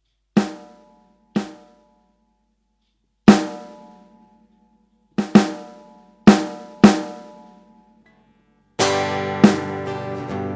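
Finhol Stompcon stomp box struck with the foot: seven separate drum-like hits, each ringing briefly, irregularly spaced, two of them in quick succession. Near the end a strummed guitar comes in, with the stomp hits keeping time under it.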